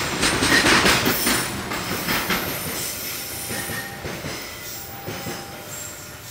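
Container freight train wagons rolling past on the rails, the wheels clattering over the track. The noise fades away steadily over the last few seconds as the end of the train passes.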